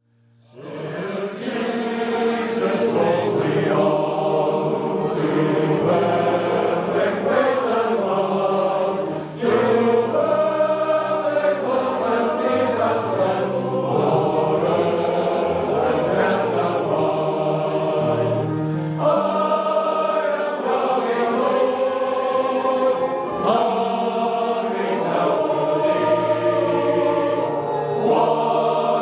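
Male voice choir singing a cappella in full harmony, entering together just after a moment of silence and holding long, sustained chords.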